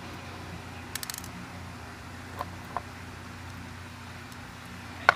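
Small metallic clicks and taps from handling a gutted pin-tumbler lock cylinder and its pins with tweezers: a quick run of clicks about a second in, two light ticks a little later, and one sharp click near the end, over a steady low hum.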